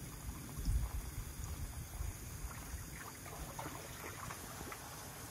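Faint water sloshing and trickling in a child's inflatable play pool, over a low rumble.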